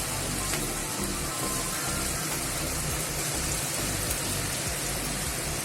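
Batter-coated potato, pumpkin and pointed-gourd peels deep-frying in hot mustard oil, a steady dense sizzle and crackle.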